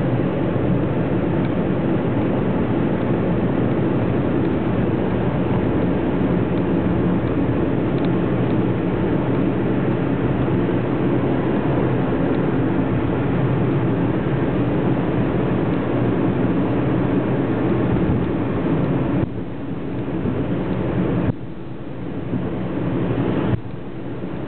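Steady engine and road noise heard inside the cabin of a car driving along a road. The sound drops sharply in level a few times near the end.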